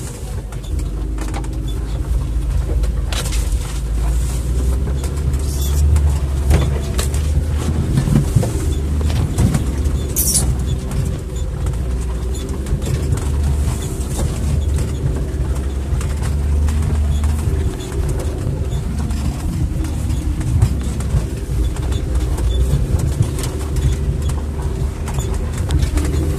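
Off-road 4x4's engine running steadily at low revs, heard from inside the cab as it drives over a rough snowy forest track, with occasional knocks and rattles as the vehicle jolts over bumps, the sharpest about ten seconds in.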